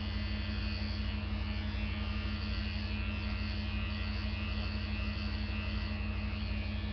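Small battery-powered ladies' electric shaver buzzing steadily as it is run over the forearm.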